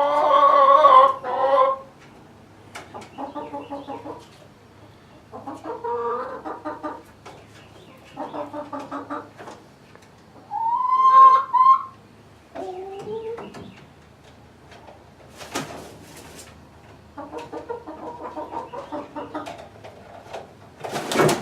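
Chickens clucking in several runs of quick, rapid clucks, with a louder squawk that rises in pitch about halfway through. A few short rustles come near the end.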